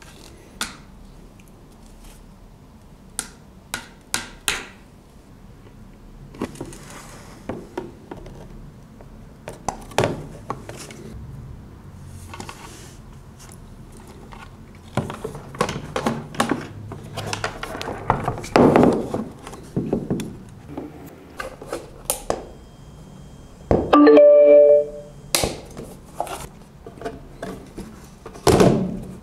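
Plastic enclosure panels and car speakers handled on a wooden workbench: scattered clicks, taps and knocks. About 24 seconds in there is a louder, brief pitched sound.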